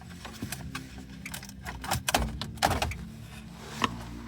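Hard plastic clicking and knocking as the infotainment screen and bezel assembly of a 2016 Chevrolet Silverado is pulled out of the dash, with a cluster of louder knocks about two seconds in and one more sharp knock near the end.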